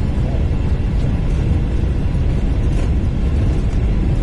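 Steady low rumble on the flight deck of a Boeing 777 during its takeoff roll: the engines at takeoff thrust and the landing gear rolling fast over the runway, with a couple of faint ticks.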